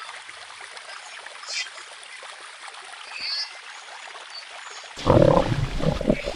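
Steady water-like ambience with a few short, high chirps. About five seconds in, a loud, deep rumbling blast sets in and runs on to the end.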